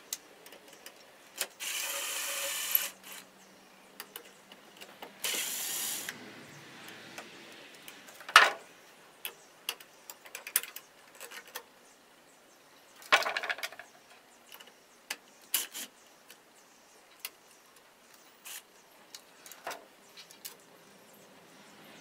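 A cordless drill-driver runs twice, about a second each time, driving screws that fix a metal electrical box to a wooden beam. Scattered clicks and knocks follow as the box and wiring are handled.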